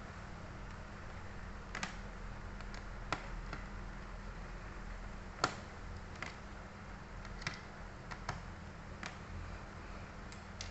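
Light, scattered clicks and taps of a small screwdriver and metal parts as the screws over a laptop's processor are fastened, over a low steady hum.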